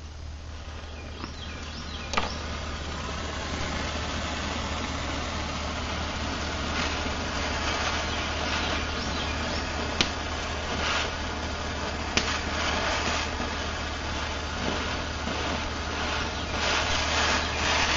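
Hand-held gas torch flame hissing steadily against a steel knife blade, heating its spine for a differential temper, and growing gradually louder. A few sharp clicks come through it.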